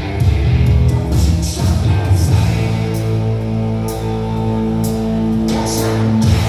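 Rock music with singing and guitar, heavy in the bass, played loud over loudspeakers under test. About two seconds in the music settles into long held notes that break off near the end.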